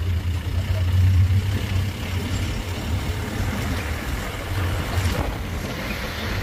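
Engine of an open safari canter running as the vehicle travels, a steady low rumble that swells slightly about a second in.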